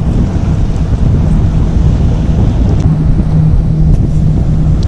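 Wind buffeting the microphone on an open sandbar, a loud rough rumble, with a steady low hum underneath from about a second in.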